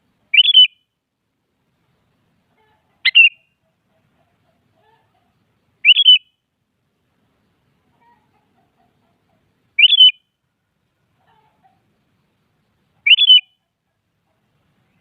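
Sooty-headed bulbul (kutilang) giving five short calls, spaced three to four seconds apart.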